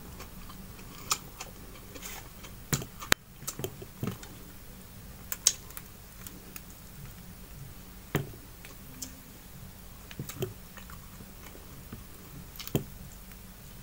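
Eating with the hands: scattered light clicks and taps, about a dozen, as fingers pick at a fried fish on aluminium foil and at a tomato-and-onion salad in a clay bowl.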